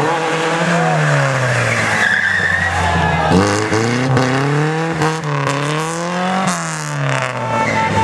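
Lada 2107 rally car's engine revving hard through a hairpin, its note rising and falling several times with a sudden drop about three and a half seconds in, while the tyres squeal as the car slides sideways.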